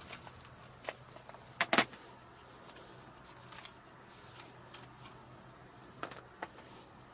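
A few sharp clicks and knocks over a faint steady low hum, the loudest a quick double knock about two seconds in, with two smaller ones near the end.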